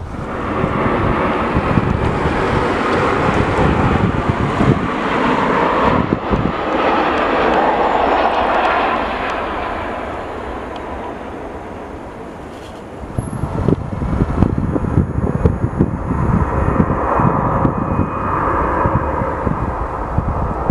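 Jet airliner engine noise, a broad steady rush that builds and then fades away over about twelve seconds. It changes abruptly to another airliner's engines, mixed with a gusty low rumble.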